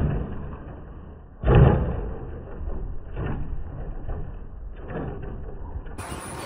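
Traxxas Bigfoot RC monster truck thudding down hard on landing: one loud thud about one and a half seconds in, then a couple of fainter knocks as it bounces, and a hiss sets in near the end.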